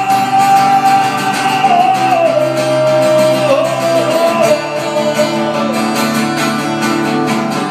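A man singing one long held note that wavers and steps down in a run, over a strummed acoustic guitar, amplified through a live sound system.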